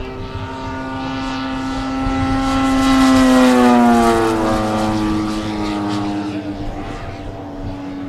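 Propeller-driven RC scale model of a Morane-Saulnier D-3801 flying past, its motor and propeller giving a steady pitched note. The note swells to its loudest about three to four seconds in, then drops in pitch as the model goes by.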